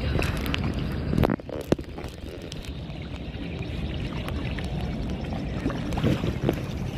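Water splashing as a snorkeler in fins ducks under and kicks down, with sharper splashes about a second in and again near the end, over steady wind noise on the microphone.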